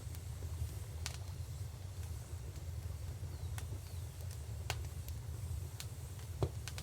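Wood fire crackling: scattered sharp pops and snaps, the loudest about six seconds in, over a low steady rumble.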